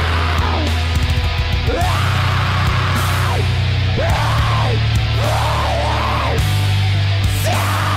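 Heavy metal song: dense down-tuned distorted guitars and bass with drums and cymbals, and high notes sliding up and down in pitch several times.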